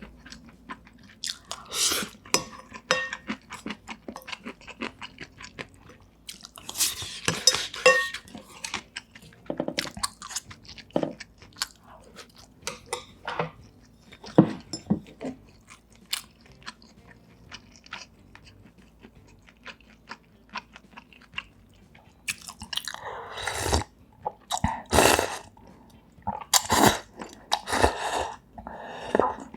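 Close-miked chewing and crunching of food, with many small clicks and mouth sounds, and a few louder bursts near the end.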